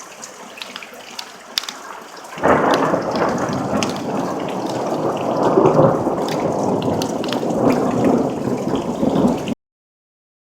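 Rain falling with scattered sharp drops, then about two seconds in a loud crack of thunder breaks out and rumbles on for about seven seconds before the sound cuts off suddenly.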